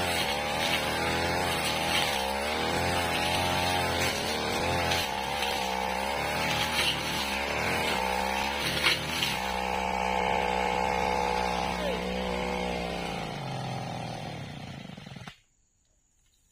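Backpack brush cutter's small petrol engine running under load, its pitch rising and falling with the throttle, with the blade hitting tough, wiry fern stems and brush. The engine note eases down near the end, and the sound cuts off about fifteen seconds in.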